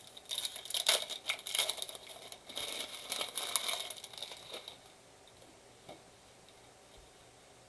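Trading card packaging being crinkled and torn open: a quick run of crackly rustles and tears over the first four to five seconds.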